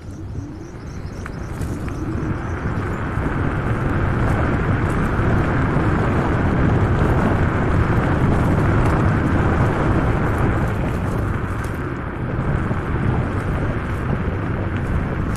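Wind rushing over a handheld action camera's microphone, with road rumble from an electric scooter riding fast. The noise builds over the first few seconds as the scooter gathers speed, then holds steady.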